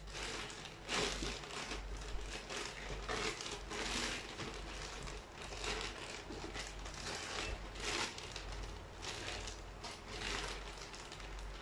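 Grey plastic mailing bag crinkling as hands grip, crumple and open it, in irregular bursts of rustling, the loudest about a second in and again around four, eight and ten seconds.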